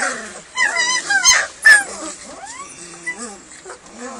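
Hungry German Shepherd puppies whining and yelping at feeding time: many short, high cries that bend up and down and overlap. The loudest sharp yelps come around a second and a half in.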